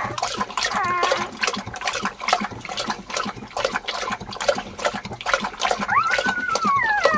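Kangal mother dog lapping liquid food from a bowl in quick wet laps, while her young puppies give high-pitched whines that rise then slide down in pitch, a short one about a second in and a longer one near the end.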